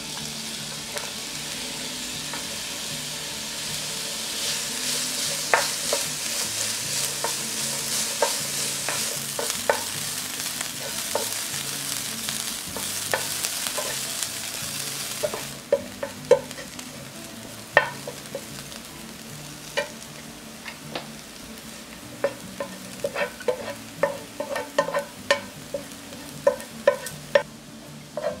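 Diced onion frying in oil in a nonstick frying pan, sizzling steadily while a wooden spatula stirs and taps against the pan. The sizzle drops off sharply about halfway through, leaving mostly quick spatula taps and scrapes that come faster near the end as the onion is fried until browned.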